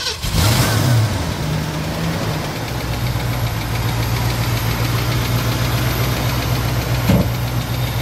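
1966 Ford Mustang's 289 V8, fitted with a four-barrel Holley carburettor, starting: it catches right away, revs up briefly, runs at a higher fast idle for about two seconds, then settles to a steady idle. One short knock about seven seconds in.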